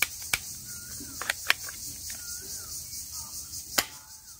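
A few sharp plastic clicks, about five, as a toy pistol is handled. Under them run a steady high insect drone and a bird's short curved calls repeating about once a second.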